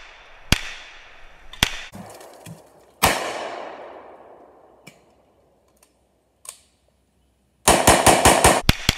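Maxim Defense MDX 508 rifle firing 7.62x39 rounds: three single shots in the first few seconds, each trailing off in a long echo, then a pause and a rapid string of shots, about seven or eight a second, near the end.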